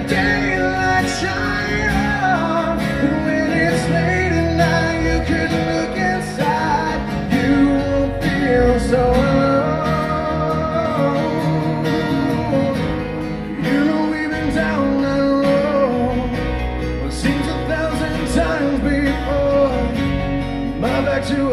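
Live band performance of a rock ballad: strummed acoustic guitar and electric bass under a male lead vocal.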